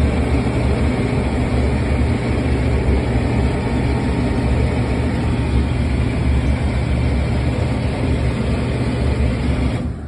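ThermoSpa hot tub's pump motor running, heard close up: a loud, steady hum with a rushing noise over it. The sound drops away abruptly near the end.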